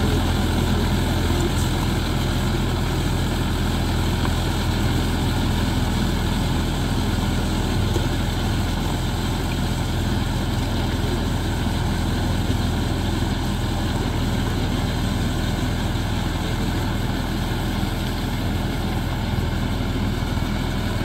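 Mahindra 575 DI Yuvo Tech+ tractor's four-cylinder diesel engine running steadily under load while driving a rotavator through a flooded paddy field.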